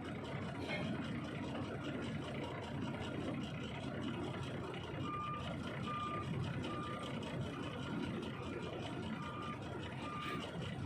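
A heavy truck's engine and road noise running steadily, with an electronic reversing alarm sounding short, high, evenly spaced beeps, about one every three-quarters of a second, from about halfway in.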